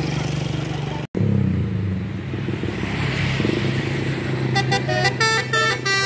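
Tour bus engine running, then from about four and a half seconds in a Basuri 'telolet' multi-tone bus horn plays a quick tune of short, changing notes.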